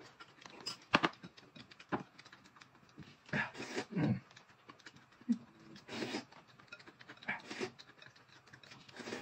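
Close-up eating sounds: irregular crisp crunches of dry oat-and-fruit cereal pieces being chewed, with slurps of noodles and broth from a bowl.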